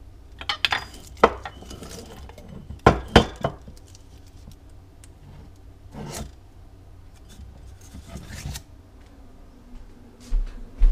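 Ceramic mugs clinking and knocking against each other and the cupboard shelf as one mug is taken out. There is a cluster of clinks near the start, the loudest knocks around three seconds in, then single knocks, with low thumps near the end.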